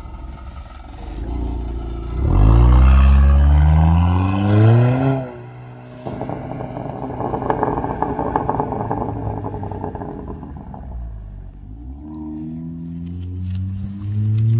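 2020 Honda Accord's turbocharged four-cylinder through a Borla S-Type exhaust, accelerating hard away with the exhaust note climbing in pitch, then cutting off abruptly about five seconds in as the throttle lifts. An uneven crackling burble follows, and near the end the revs climb again.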